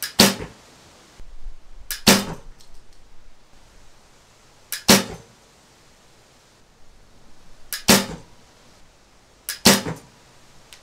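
A Hoyt GMX 3 recurve bow, fitted with steel Pro tiller bolts, is shot five times at intervals of two to three seconds. Each shot is a sharp double snap as the string and limbs release, followed by a short ring.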